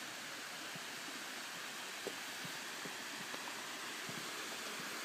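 Steady hiss of running water, with faint scattered footsteps.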